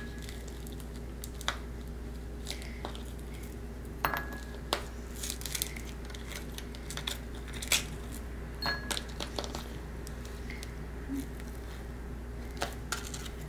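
Frozen lemon juice cubes being twisted out of a plastic ice cube tray and dropping into an Iwaki heat-resistant glass bowl: scattered irregular clicks and clinks, a few with a short glassy ring.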